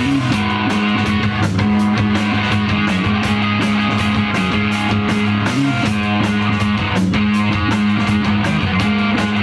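Live instrumental rock trio playing: electric guitar and bass guitar holding heavy low notes over a steady drumbeat with cymbals.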